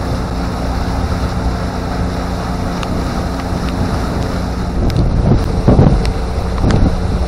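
Pontoon boat's outboard motor running steadily under way, with wind buffeting the microphone and water washing past the hull. From about five seconds in, the buffeting comes in louder gusts.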